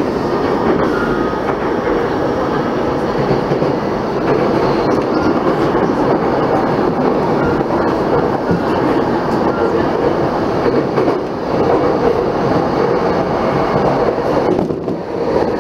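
Saikyō Line commuter electric train heard from inside the car while running, a steady rolling noise with the clickety-clack of wheels over rail joints. There is a brief squeak about eight seconds in.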